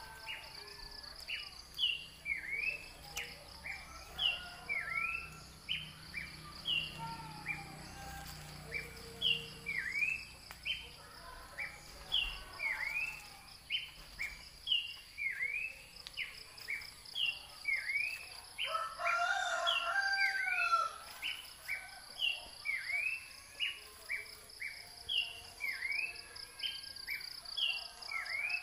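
Outdoor bird and insect ambience. A high chirp repeats about once a second over a steady, pulsing high insect buzz. A louder, lower call lasting a second or two comes about two-thirds of the way through.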